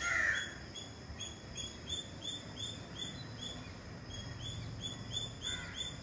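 A bird repeating a short, high chirp about four times a second, steadily, with a louder brief call right at the start.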